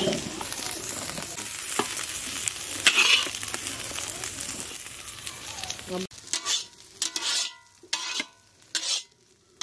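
Metal spatula scraping and scooping stir-fried radish greens out of a hot iron kadhai, with the food still sizzling, and a louder scrape about three seconds in. About six seconds in this gives way to quieter, scattered sounds.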